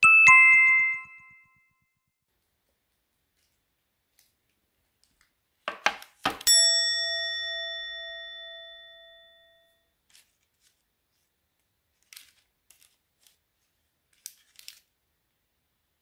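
A clink of tableware rings briefly at the start. About six seconds in come a few clicks and then a louder clink that rings out for about three seconds. A few faint light taps follow near the end.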